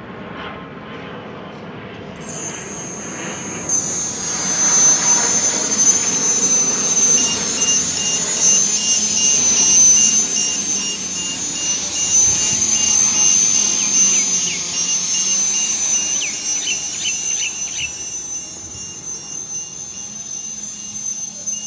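Homemade drone's 1400kv brushless motors spinning 8-inch propellers, a steady high-pitched whine with propeller noise that starts about two seconds in, gets louder a couple of seconds later and eases off near the end.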